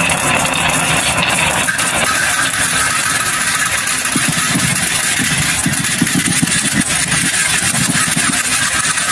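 Many glass marbles rolling down a carved wooden HABA wave track, a steady rattling rumble with many small clicks of marble on marble and wood.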